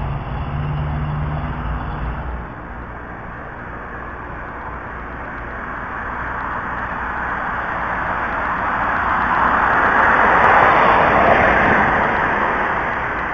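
A car passing along the street at speed, its engine and tyre noise swelling to a peak about ten seconds in and then fading, heard through a security camera's microphone. In the first two seconds or so, before a cut, there is a low droning hum from another vehicle.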